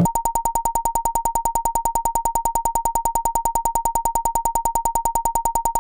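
Electronic soundtrack: one steady synthesizer tone, cut into rapid even pulses of about a dozen clicks a second, holding level until it stops abruptly.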